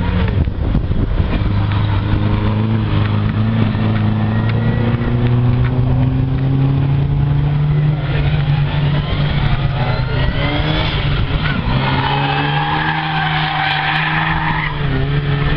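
Race car engines running hard, the pitch climbing slowly through the revs, dropping and climbing again. Tyres squeal for a few seconds near the end as a Lada slides through a corner.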